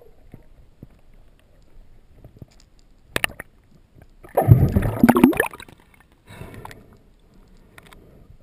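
Water sloshing and gurgling against an underwater camera, with a sharp knock about three seconds in and a louder gurgling splash lasting about a second near the middle.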